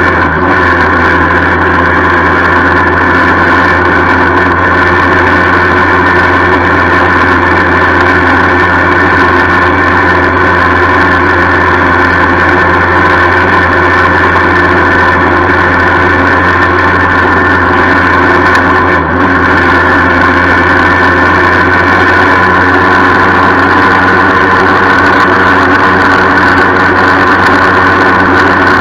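A 1976 Yamaha FS-1 moped's 50 cc two-stroke single running at a steady pitch while riding, with a rattle that the owner says he still has to sort out.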